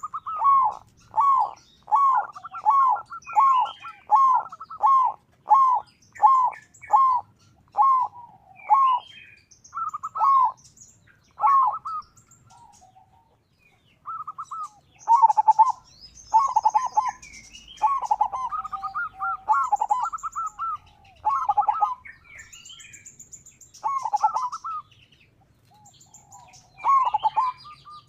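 Zebra dove (perkutut) cooing: a long series of quick, evenly spaced staccato notes for about twelve seconds, then after a short pause more irregular bursts of cooing. Faint higher chirps sound above it.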